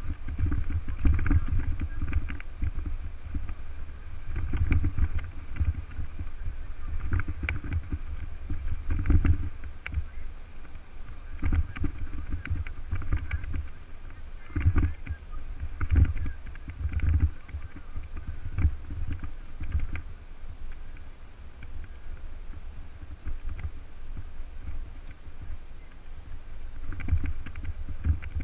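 Wind buffeting the microphone of a camera on a moving bicycle, in uneven low gusts, with scattered knocks and rattles from the bike over cracked, broken asphalt.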